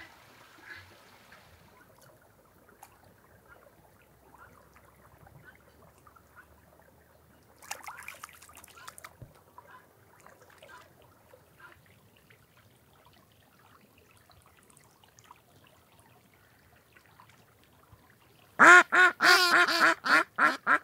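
Domestic ducks quacking loudly near the end, a rapid run of about nine quacks in a little over two seconds.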